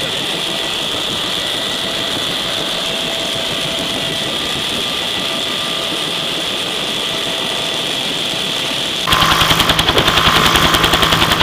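Bell UH-1 Huey helicopter heard from inside the cabin: a steady rush of turbine and rotor noise with a high whine. About nine seconds in it cuts abruptly to the helicopter heard from outside on the ground, its two-blade main rotor beating in a rapid, loud, even rhythm.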